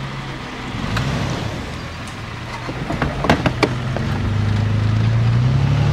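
Toyota FJ Cruiser's 4.0-litre V6 engine working under load on a steep dirt climb. It revs up about a second in and builds again over the last couple of seconds. Halfway through come a quick series of sharp knocks.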